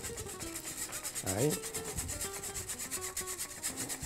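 Metal spoon scraping flour through a fine wire-mesh sieve in quick, even strokes, sifting it into melted butter for a roux.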